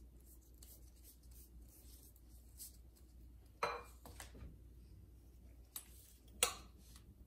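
Faint soft swishing of a pastry brush spreading melted butter over a sheet of filo dough, then two sharp knocks, one about three and a half seconds in and the louder near the end.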